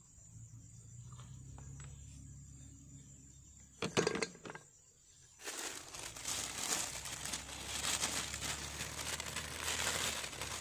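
Plastic bag crinkling and rustling as hands open it and take out new oil-filter seal rings, from about five and a half seconds in to the end. A short clatter about four seconds in.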